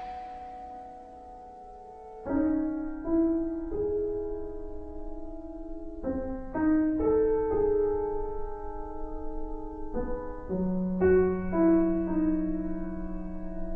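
Instrumental break in a pop-rock song: the last loud band chord rings away, then a solo piano comes in about two seconds in and plays slow, held chords. No vocals.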